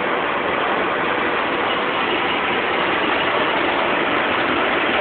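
Steady traffic and engine noise heard from inside a car moving slowly through city traffic, an even rushing hum with no distinct events.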